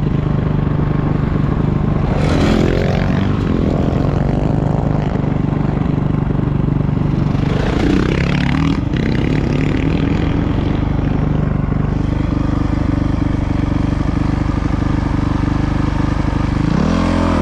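Dual-sport dirt bike engine running steadily on the trail, its pitch dipping briefly about two and a half seconds in and again around eight seconds in as the throttle changes, and shifting once more near the end.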